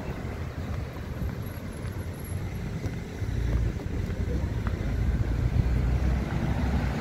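Road traffic noise along a city street, with wind on the phone's microphone. The low rumble grows louder about three seconds in.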